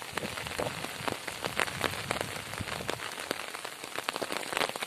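Rain falling on flooded water: an even patter of many small drops and splashes.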